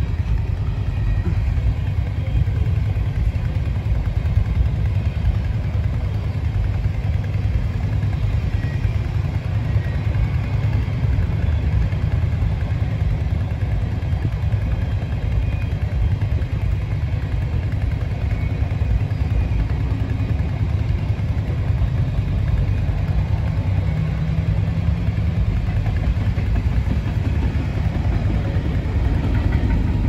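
Freight train of tank cars rolling past with a steady low rumble, mixed with motorcycles idling close by. A car drives past close near the end.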